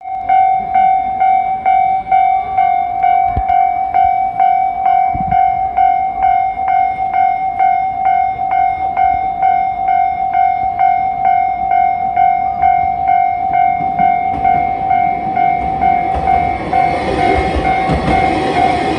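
Japanese level-crossing warning bell ringing steadily at about two dings a second. From about two-thirds of the way in, the noise of an approaching train builds up under it.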